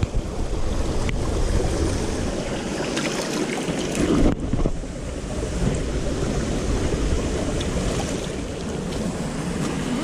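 Steady rushing of a shallow forest stream running over rocks, with wind noise on the microphone.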